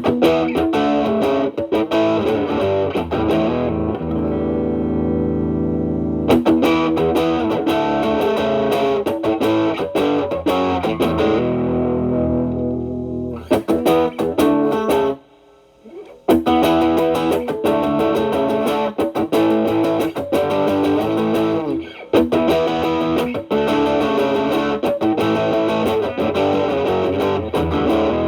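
Stratocaster electric guitar played through an Xotic BB Plus preamp, with Channel A boosting Channel B at gain 10, into a Marshall Valvestate amp: distorted runs of picked notes and held notes. The playing stops for about a second around the middle.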